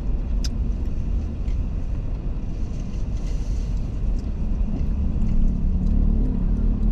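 Car cabin noise of a car creeping in slow traffic: a steady low rumble that grows a little louder a few seconds in as the car moves forward.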